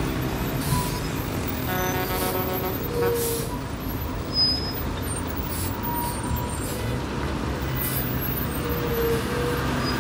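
Large buses and other traffic crawling in a jam, with a steady low engine rumble and short hisses of air brakes.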